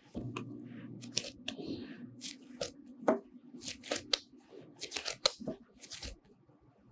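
Hands rounding a ball of soft bread dough: a quick, irregular run of pats and slaps of palms on the dough, with skin rubbing over its surface as it is cupped and turned. The pats die away about a second before the end.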